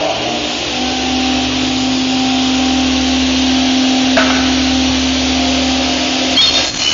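Electric motor and blade of a 45-degree aluminium miter saw running steadily at speed, with a steady hum and a brief knock about four seconds in; the sound shifts slightly near the end.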